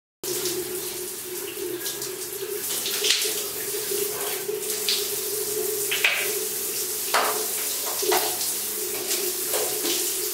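Shower running: water spraying steadily and splattering on a person and the stall, with a steady hum underneath and brief louder splashes now and then.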